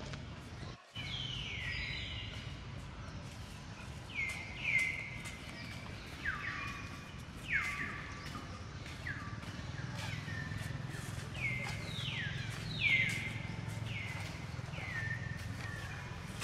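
Short high-pitched animal calls, each sliding downward in pitch, repeated roughly once a second over a steady low rumble.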